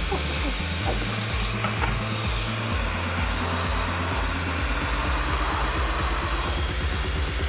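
A 12 V, 2.4 A AVC centrifugal blower fan running, a steady rush of air with a low hum underneath.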